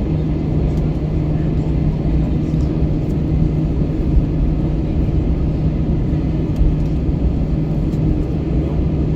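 Airbus A321 engines and airflow heard inside the passenger cabin as a loud, steady low rumble with a constant hum running through it.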